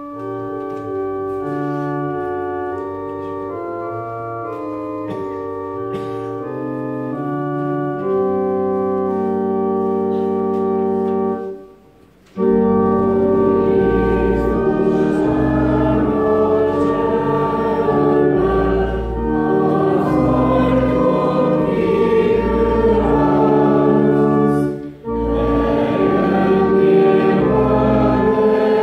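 Church organ playing the introduction to a congregational hymn in slow, held chords. About twelve seconds in it stops briefly, then the congregation starts singing the hymn with the organ accompanying, with one short breath-pause between lines near the end.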